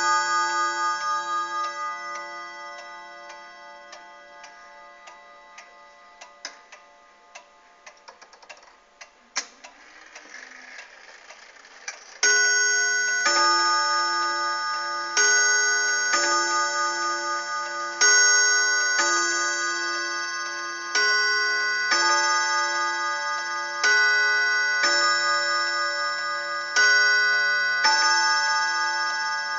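The gong of a 1927 Mauthe 'Divina Gong' wall clock rings on from an earlier stroke and slowly dies away, while the movement ticks faintly. About twelve seconds in, the clock starts striking the hour. Each gong stroke rings on, and they come about one to two seconds apart.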